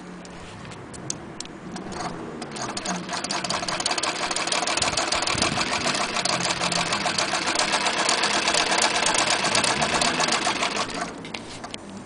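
Vintage West German Frister & Rossmann sewing machine stitching through fabric, with a fast, even ticking of the needle mechanism. It speeds up over the first few seconds, runs steadily, then stops about a second before the end.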